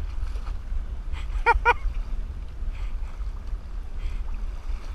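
Wind buffeting the microphone with a steady low rumble, over faint water noise from kayak paddle strokes. Two short distant calls come about a second and a half in.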